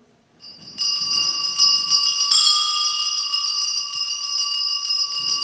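Altar bells (sacring bells) ringing continuously with a steady high jangle at the elevation of the chalice, just after the words of consecration. The ringing starts about half a second in and gets louder with a fresh shake about two seconds in.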